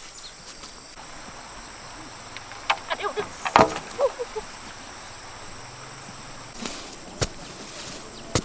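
Insects droning steadily at a high pitch, with a cluster of sharp knocks and clicks about three to four seconds in and single knocks near the end.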